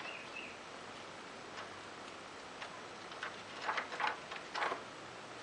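Paper pages of a book being flipped: a few soft rustles near the end, over a faint steady hiss with scattered light ticks.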